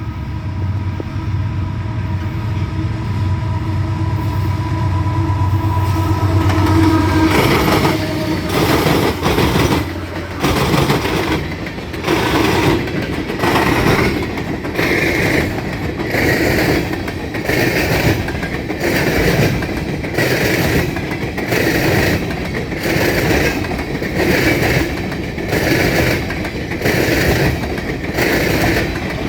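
Diesel freight locomotives rumble past with a steady held tone over the engine sound. About seven seconds in, this gives way to empty coal hopper cars rolling by, their wheels clattering over the rail joints in an even clickety-clack, roughly one beat a second.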